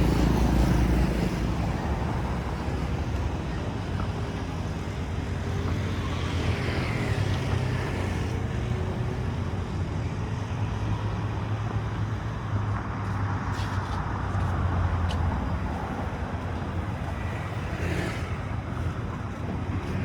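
Motor traffic on a street: a steady low engine rumble of vehicles running nearby, with a few light clicks in the second half.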